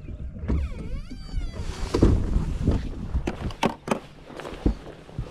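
A short whine that glides down and back up about half a second in, followed by a series of irregular knocks and clunks.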